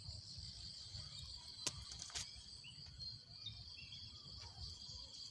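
Crickets trilling steadily in a chorus, with a few faint short chirps and two sharp clicks about a second apart near the middle.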